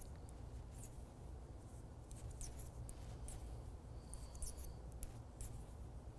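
Faint clicks and scratches of knitting needles and yarn being worked by hand, scattered through the second half, over a low steady hum.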